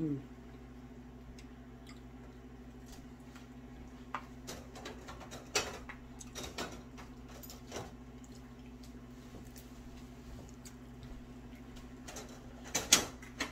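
Eating at a dinner table: scattered light clicks of forks against plates and chewing, over a steady low hum, with a cluster of louder clicks near the end.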